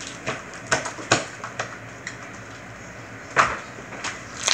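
Slime being kneaded and stretched by hand, pressed into a bubble: a string of short sticky clicks and smacks, the loudest about three and a half seconds in.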